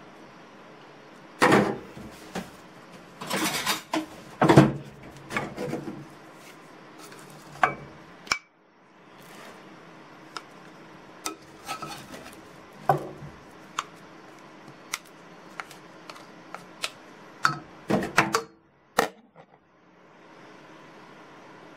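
A glass pot lid is lifted off, then a rice paddle and a bowl clink, knock and scrape against a metal pot as cooked rice is scooped out. The knocks are loudest in the first few seconds and then come scattered and lighter.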